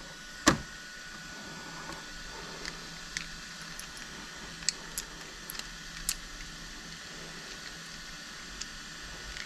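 3D-printed plastic fidget cube being flexed and folded in the hands: one sharp click about half a second in, then scattered light plastic clicks and taps, over a steady background hiss.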